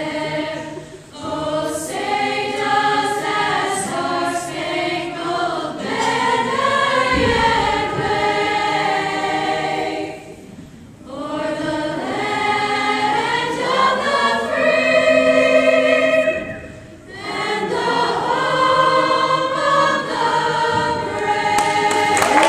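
School chorus singing the national anthem, in phrases with short breaks between them and long held notes. Applause starts near the end as the final note is held.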